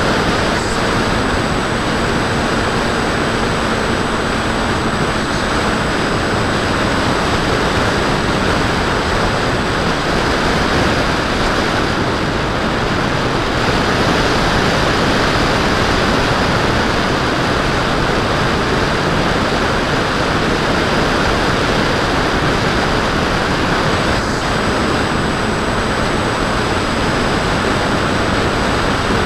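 Onboard audio from a Bixler 2 foam RC plane in flight: a loud, steady rush of wind over the camera microphone together with its Turnigy D2826 brushless pusher motor and 8x5 propeller running steadily. A faint, steady high whine sits above the rush.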